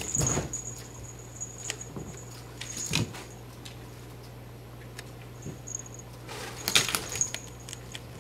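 Cats jumping, pouncing and landing on a carpeted floor: soft thumps and scuffles, loudest about three seconds in and again near seven seconds in. A faint, thin high jingle comes and goes.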